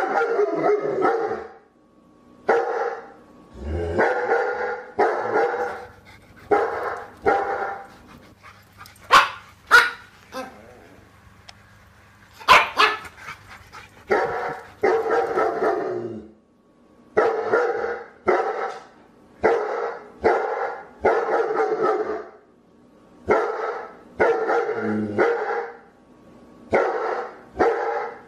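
Dog barking over and over, each bark lasting about half a second to a second, with a pause of a few seconds in the middle broken by a few sharp clicks.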